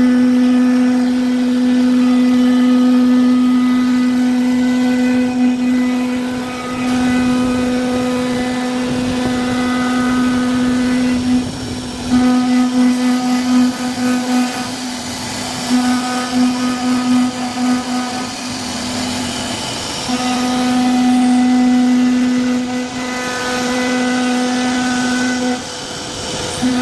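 CNC router spindle motor running with a steady high-pitched whine over a noisy cutting sound as the bit carves MDF board. The whine wavers and drops out briefly a few times.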